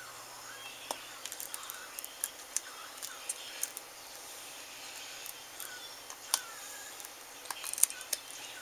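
Light plastic-and-metal clicks, with small squeaky scrapes, as an iPhone 5's front screen assembly is worked loose from its frame until it releases.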